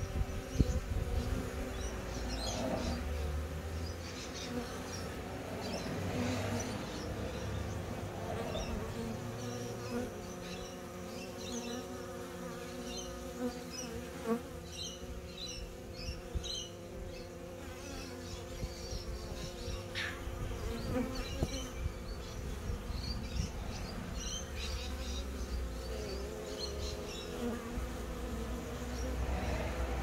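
Honeybees buzzing steadily, their wingbeats making a hum of several held tones, with a low rumble coming and going underneath.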